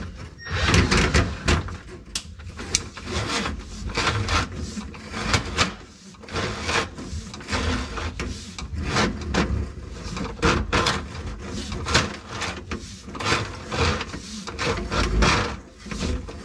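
Drain-cleaning cable being worked down a vent pipe: irregular scraping and rubbing strokes with knocks, and a low rumble underneath.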